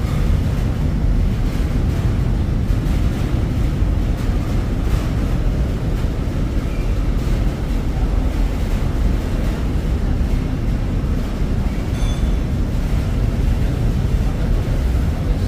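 Steady, loud low rumble of background noise with no clear rhythm.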